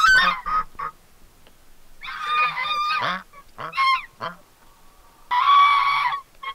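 White domestic geese honking: a quick run of short calls at the start, then long drawn-out honks about two seconds in and again near the end, with short calls between.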